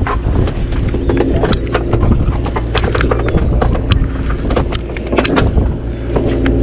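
Boat engine running steadily, with irregular sharp knocks and clicks on deck scattered throughout.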